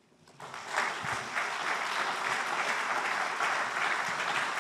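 Audience applauding, starting about half a second in after a moment of quiet and going on steadily.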